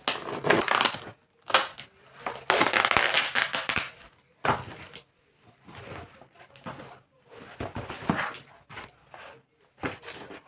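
Cardboard shipping box being pulled and torn open by hand: a run of irregular tearing and scraping bursts, the longest and loudest lasting about a second and a half from about two and a half seconds in, then smaller rustles.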